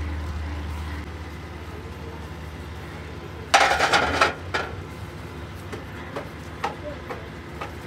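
Steel parts and tools clattering against each other during excavator wheel-hub work: a loud burst of metallic clinks about three and a half seconds in, then a few scattered light clinks. A low hum fades out in the first second.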